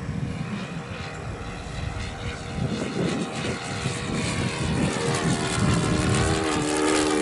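O.S. FS40 four-stroke glow engine of a radio-controlled model airplane running in flight. Its steady drone grows louder from about halfway through as the plane comes closer.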